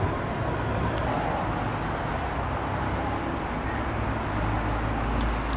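Street traffic noise, with a low engine rumble from a vehicle building from about four seconds in, and a few faint clicks.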